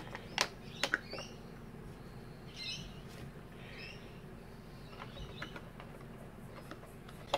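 A few sharp plastic clicks in the first second as the white cover of a Kenwood Chef stand mixer is handled and fitted over its gear housing. Faint bird chirps follow at about two and four seconds in.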